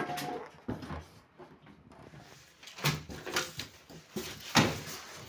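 A few short knocks and scrapes of handling as thermocol (polystyrene) packing pieces are moved around a washing machine.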